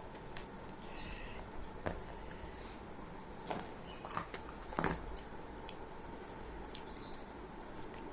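Hands handling a phone box and its packaging: scattered clicks and short crackles of card and plastic. The loudest come in a cluster about three and a half to five seconds in.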